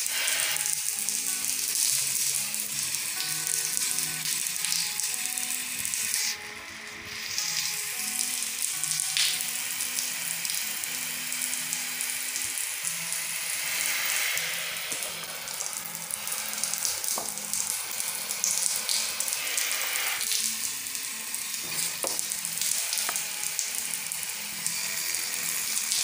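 Pressure-washer spray hissing as the jet blasts soapy water into the fan and coil of a split air-conditioner's indoor unit. The spray briefly stops about six seconds in, then carries on.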